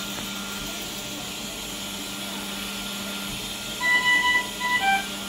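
Steady electrical machine hum, then, near the end, a string of short electronic beeps at two or three fixed pitches, the loudest sound here.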